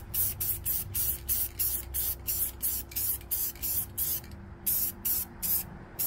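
Aerosol spray-paint can hissing in quick short spurts, about three a second, with a brief pause a little past the middle.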